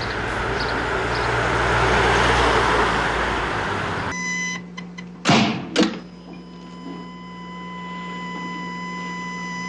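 A Mercedes SUV drives past: its road noise swells and fades, then cuts off abruptly about four seconds in. About a second later come two heavy thumps half a second apart, followed by a steady high ringing tone over a low hum.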